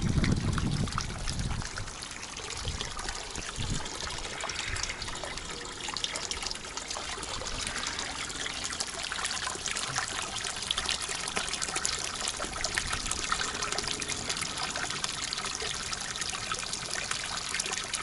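Spring water pouring steadily out of a plastic pipe into a shallow stone-edged pool, a continuous splashing trickle. A low rumble sits under it for about the first second and a half.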